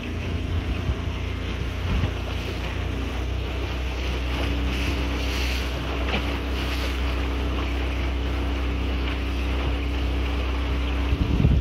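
Tohatsu MFS30C 30 hp four-stroke outboard running hard under way, its pitch stepping up slightly about three seconds in as speed builds. Wind buffets the microphone over the hiss of spray off the hull, harder near the end.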